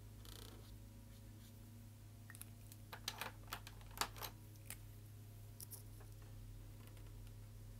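A run of faint, sharp clicks and taps as felt-tip markers are handled and swapped at a pile of markers, the loudest about four seconds in, with a short scratchy marker stroke on paper right at the start.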